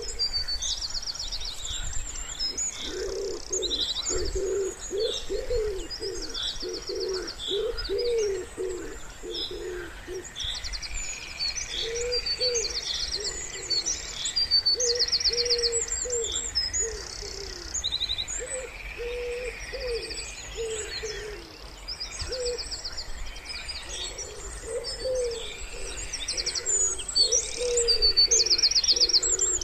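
Wood pigeon cooing in repeated low phrases, densest in the first third and then in spaced groups, while small songbirds chirp and trill high above it throughout.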